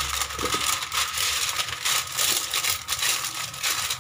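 A sheet of baking paper crinkling and rustling as it is handled, a dense irregular crackle throughout.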